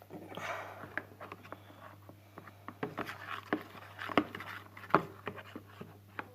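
Irregular clicks, taps and scraping of a plastic tub and its contents being handled, with the soap, glue and shaving-cream slime mixture inside.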